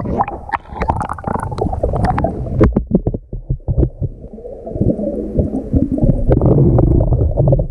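Pool water heard underwater through a submerged action-camera housing: a dull, muffled rumbling and gurgling as the swimmer moves, with many sharp crackling clicks from bubbles and water against the case.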